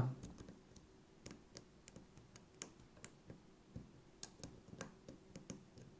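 Faint, irregular small clicks of a lock pick and tension wrench working the pins inside a six-pin pin-tumbler challenge lock.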